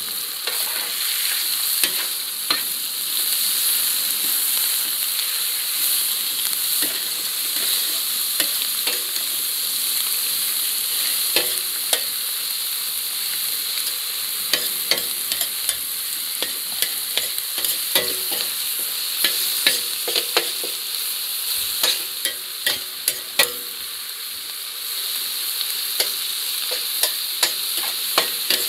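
Chicken wing pieces and fatty meats frying in their own rendered fat in a large plough-disc pan, a steady sizzle. A utensil knocks and scrapes against the pan as the meat is stirred, and the knocks come in quick clusters in the second half.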